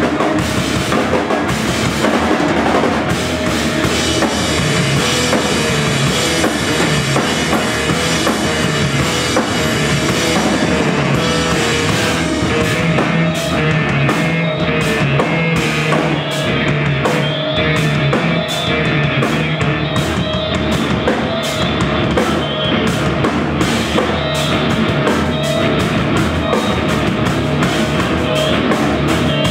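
Live band playing rock-style instrumental music on electric bass guitar, clarinet and drum kit. Around halfway through, the drumming turns into quick, regular, clipped strokes.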